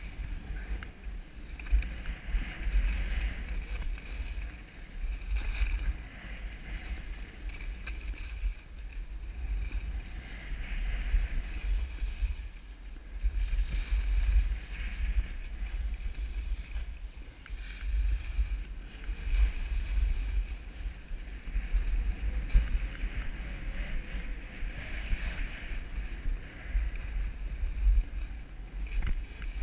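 Skis scraping and hissing over packed piste snow, the hiss swelling and fading every few seconds, over a low wind rumble on the camera microphone.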